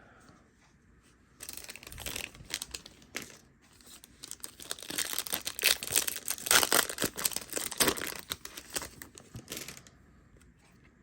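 Foil booster pack wrapper crinkling and tearing as a trading-card pack is opened, a dense run of sharp crackles lasting several seconds and loudest in the middle, stopping near the end.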